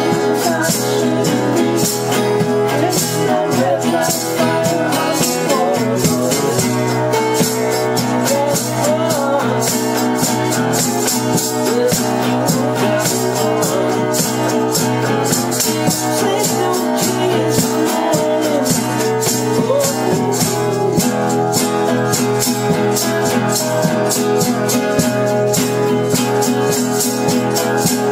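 Acoustic guitar strummed in a live band song, with a shaker rattling steadily in time over it.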